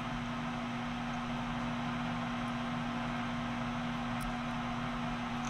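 Metal lathe running with a steady hum while a bit in the tailstock drill chuck drills the tap hole for a 1/4-28 grease zerk in the end of a spinning metal pin.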